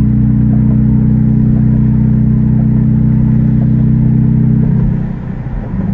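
Chrysler 3.6 L Pentastar V6 with exhaust cutouts open right after the catalytic converters, droning steadily in the cabin while cruising. About five seconds in the drone drops in level and its note breaks up.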